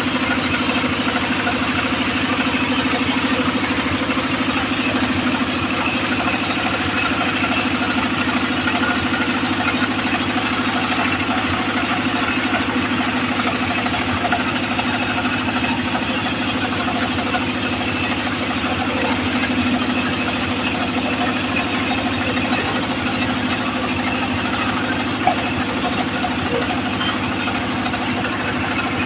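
Homemade circular saw machine running steadily at an even pitch, with no change in speed.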